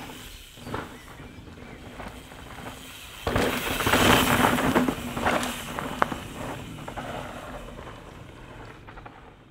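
Mountain bike riding over a dirt trail: tyres crunching and skidding through loose soil, with a few sharp clicks and knocks. A louder rush comes about three seconds in and dies away, and then the sound fades out.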